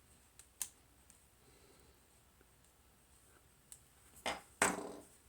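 Sharp snips of a cutting tool trimming excess hardened hot glue: a light click about half a second in, then two louder snips close together near the end.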